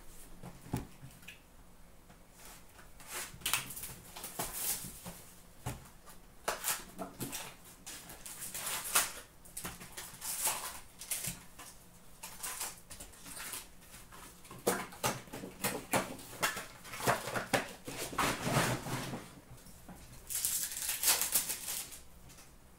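Hockey card packs being torn open and the cards handled: irregular crinkling, tearing and rustling of pack wrappers and card stock, busiest for a stretch about three-quarters of the way through.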